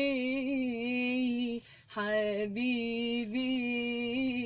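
A woman singing unaccompanied, holding two long notes on the word 'habibi' with a short break between them about a second and a half in.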